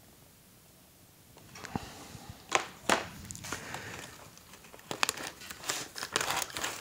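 Rummaging in a cardboard box of packed graded comics: rustling and crinkling with several sharp clicks and knocks. It starts about a second and a half in, after a quiet start.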